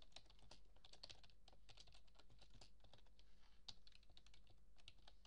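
Typing on a computer keyboard: faint, quick, irregular key clicks.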